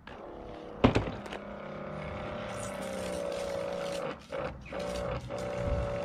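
Battery-powered Mobi V-17 portable pressure washer switched on with a click about a second in. Its pump motor then hums steadily and the water jet hisses. The hum dips briefly a few times in the second half.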